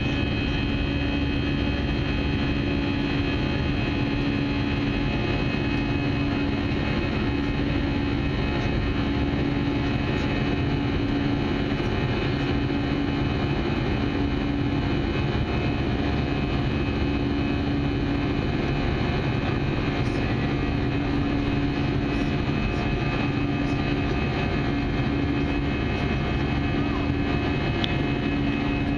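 Airbus A320 jet engines and airflow heard from inside the cabin as a steady drone during the climb. Several steady tones run through it, and one low hum swells and fades every few seconds.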